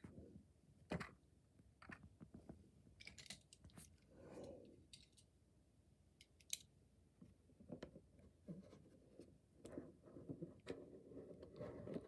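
Faint handling noise: scattered small clicks and taps with a soft sweeping rustle about four seconds in, growing busier near the end as small plastic toys (a die-cast car and a poseable figure) are handled by hand.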